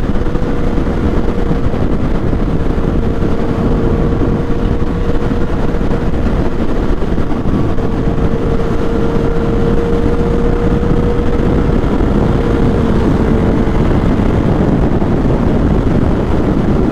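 Yamaha FZ-09 motorcycle riding at steady speed, heard on the rider's microphone: heavy wind rush with the engine's steady hum. A single steady tone in the engine note sinks slightly in pitch and fades out most of the way through.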